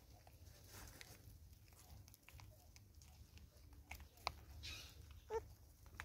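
Faint scattered ticks and taps of vervet monkeys picking seed off a wooden stump, over a low rumble, with one sharp tick about four seconds in. A short call sounds just after five seconds.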